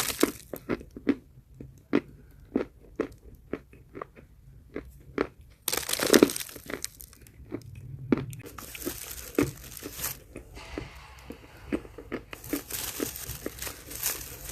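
A person biting and chewing chalk close to the microphone: a run of sharp separate crunches, about two a second, with longer crumbling, rustling stretches about six seconds in and again near the end.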